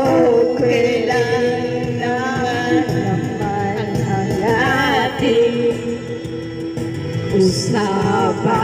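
Karaoke singing: a woman sings into a handheld microphone over a backing track, holding long, wavering notes.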